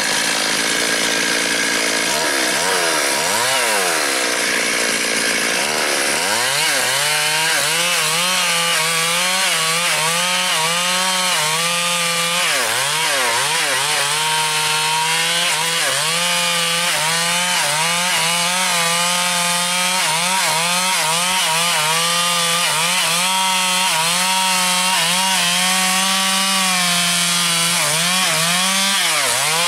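Stihl MS 382 two-stroke chainsaw running at full throttle, cutting the felling back cut through a durian trunk. The engine note wavers as the chain loads in the wood, and drops sharply then climbs back about three seconds in, again around thirteen seconds, and near the end.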